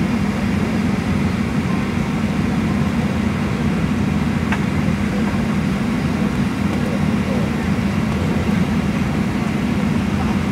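Steady cabin hum inside a Boeing 737-800 taxiing after landing, its CFM56-7B engines at idle.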